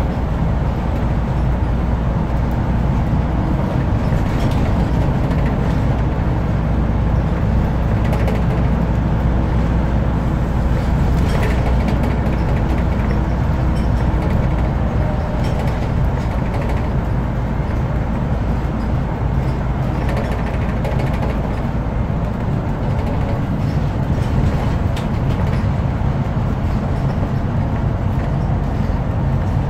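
Scania CN230UB Omnicity single-deck bus under way, heard from inside the passenger saloon: a steady diesel engine drone with road and tyre noise and a few light knocks from the body. The low engine note eases off about two-thirds of the way through.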